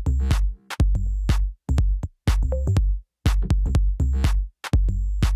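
Electronic background music: a drum-machine beat with deep bass hits, broken by several short pauses.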